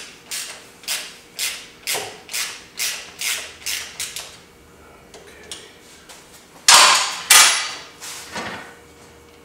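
A hand ratchet wrench clicks in quick, even strokes, about two a second, working a fastener on the engine's side; the strokes stop about four seconds in. Near seven seconds come two loud metal knocks, and a fainter one about a second later.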